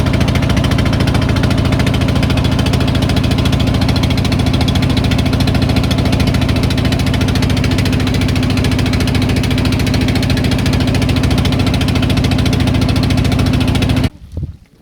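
Boat engine running steadily at a constant speed, then cutting off suddenly near the end.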